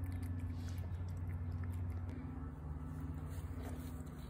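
A cat chewing wet food from a plate, faint small bites and clicks over a steady low hum.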